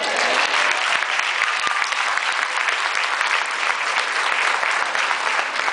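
Audience applauding, starting suddenly and keeping up a steady, dense clapping.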